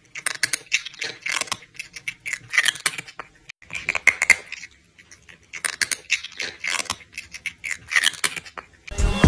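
Cats meowing and yowling loudly in a run of short, repeated cries, about half a dozen bursts with brief pauses between them.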